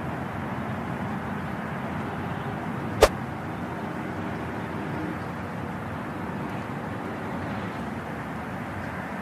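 Steady background noise with a single sharp click about three seconds in.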